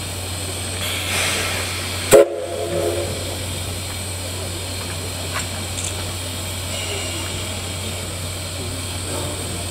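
C11 steam locomotive hissing steam steadily, with one short, loud toot of its steam whistle about two seconds in.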